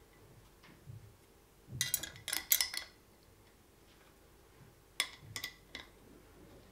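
Small metal screws clinking and ticking as they are picked up and handled while being fitted to an office chair's base leg, in two clusters of light clicks, about two seconds in and again about five seconds in.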